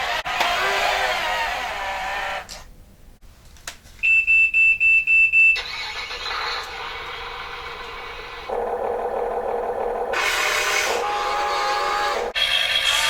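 Model construction machines' electric motors and gearboxes whining and starting and stopping. A high, rapid beeping about four seconds in is typical of a reversing beeper.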